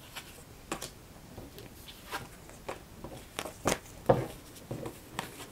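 Tarot cards being drawn from the deck and laid down on a cloth: a string of irregular soft clicks and taps, the loudest a little under four seconds in.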